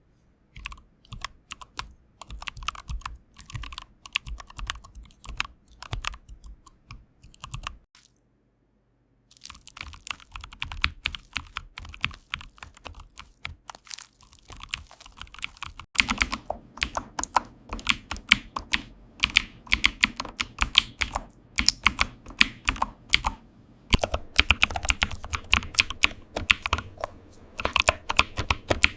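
Computer keyboard typing: a rapid, continuous stream of key clicks. It stops for about a second about eight seconds in, then resumes, and becomes louder and fuller about halfway through.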